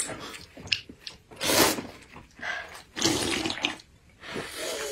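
Soup being slurped loudly from a bowl held to the lips, in several short, noisy sucking draws about a second apart, with eating mouth sounds between them.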